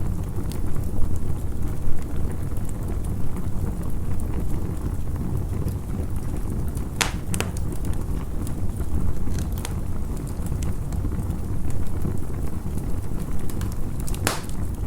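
Campfire burning: a steady low rumble with a handful of sharp crackles and pops, the loudest about halfway through and near the end.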